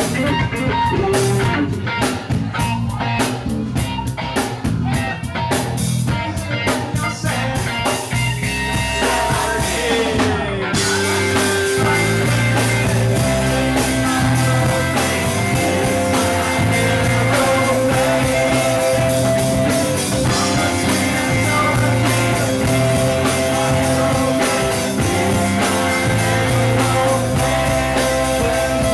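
Live rock band playing: electric guitars, bass and drum kit with male singing. About ten seconds in the music turns denser, with held notes over the beat.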